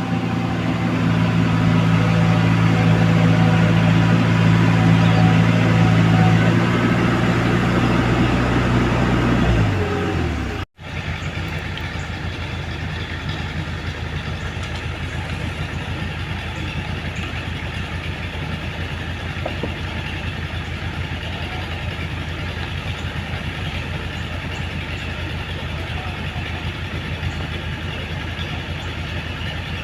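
Diesel engine of a Komatsu PC75UU mini excavator running at steady high revs, then dropping in pitch about ten seconds in. After a sudden break in the sound it settles into a quieter, steady idle.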